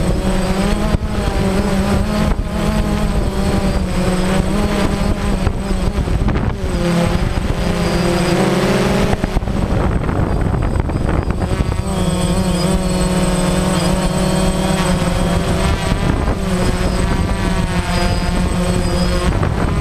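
DJI Phantom quadcopter's electric motors and propellers buzzing, heard close up from the drone's own camera, with a rushing wash of air. The pitch wavers and shifts as the drone manoeuvres.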